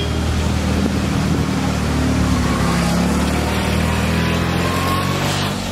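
Classic Fiat 500's small air-cooled two-cylinder engine running as the car drives past, its pitch shifting a little as it moves off.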